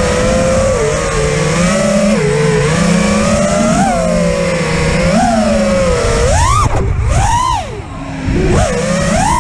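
A 5-inch FPV quadcopter's brushless motors and props (XING E-Pro 1800kv on 6S, HQ 5037 props) whining, recorded onboard, with rushing air underneath. The pitch wavers gently with throttle for about six seconds, then swings in sharp rising and falling sweeps as the throttle is punched and chopped.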